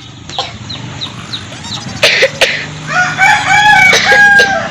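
A rooster crowing one long crow of several held notes, starting about three seconds in, after two loud harsh calls around two seconds in. Quick high bird chirps repeat through the first part.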